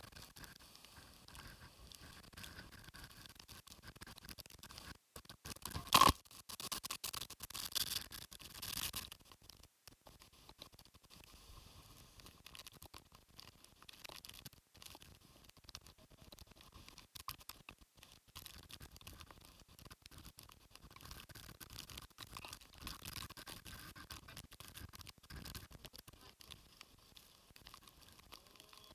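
Faint storm rain and wind patter and scratch against the phone's microphone. There is a sharp knock about six seconds in and a louder scratchy stretch up to about nine seconds.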